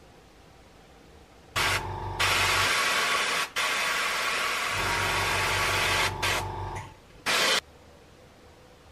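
Airbrush spraying: a loud hiss of air and paint that starts about a second and a half in, breaks off briefly a few times and stops near the end, with a low hum under part of it.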